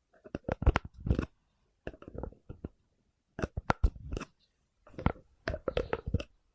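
ASMR tapping and knocking on an object: quick runs of sharp taps, several strokes at a time, in about six bursts with short silent gaps between.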